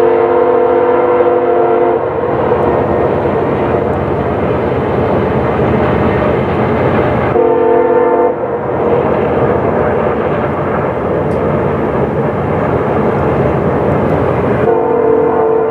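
Nathan Airchime multi-chime locomotive horn sounding a chord three times: a long blast ending about 2 seconds in, a short one about halfway, and another starting near the end. A steady rumble of the train runs underneath between blasts.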